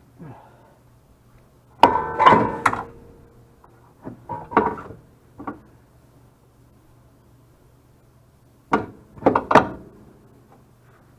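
Metal clanks and knocks in three clusters as a steering rack and pinion is worked into place under a car, the first cluster the loudest with a short metallic ring.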